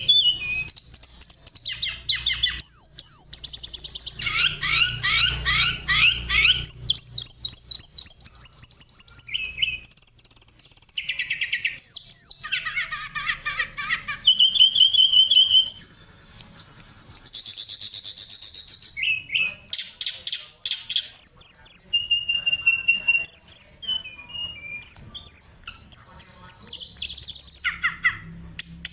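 Oriental magpie-robin (kacer) singing continuously: quick, varied phrases of high whistles, trills and rapid chattering notes, separated by short pauses.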